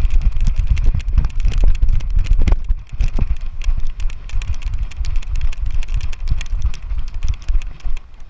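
A GoPro camera being jostled in motion: rapid irregular clicks and knocks over a heavy low rumble of handling or wind noise, dropping away near the end.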